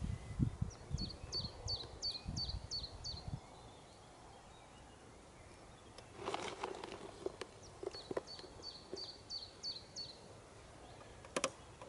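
A small songbird singing two phrases, each a quick run of about eight high, down-slurred notes lasting a couple of seconds. In between come low knocks and rustling from handling fishing tackle and bait, with a sharp click near the end.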